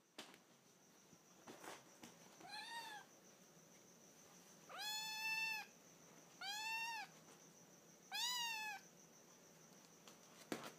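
A kitten meowing four times: short, high-pitched mews, each rising then falling slightly in pitch. The first is faint, and the second, about five seconds in, is the longest and loudest.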